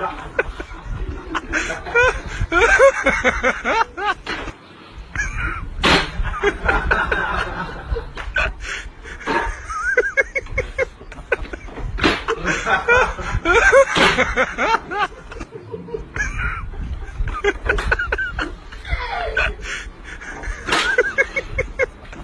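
People laughing and snickering in short bursts, with a few sharp clicks or smacks between them.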